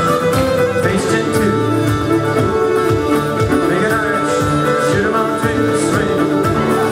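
Live fiddle and guitar playing a contra dance tune, with the guitar keeping a steady beat under the fiddle melody.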